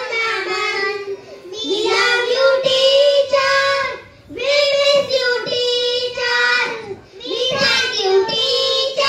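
A group of young children singing together in unison, in phrases of held notes with short pauses between them.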